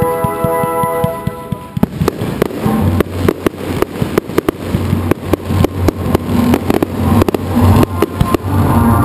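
Aerial fireworks launching and bursting: a rapid run of sharp bangs and crackles starts about two seconds in and goes on almost to the end, over music with steady held tones.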